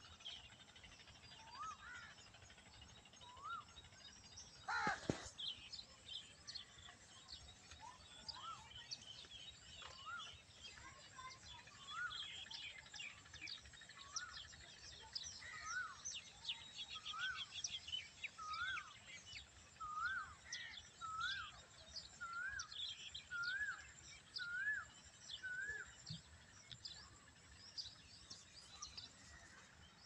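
Birds calling and chirping in the background. One bird repeats a short rising-and-falling call, the calls coming faster and closer together through the second half. A single brief loud knock comes about five seconds in.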